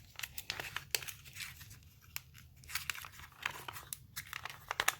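Packaging being handled and unwrapped: irregular crinkling and tearing crackles as the toy's wrapped parts are taken out of the box.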